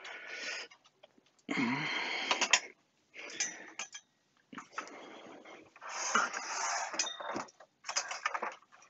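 Handling noise from a metal-cased C1-93 oscilloscope being moved and turned: several short bursts of scraping and rubbing with light metallic clicks and clinks.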